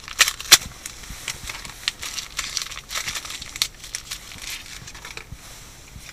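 Paper and plastic packaging crinkling and tearing as it is unwrapped by hand. The sharp crackles are densest in the first four seconds and thin out near the end.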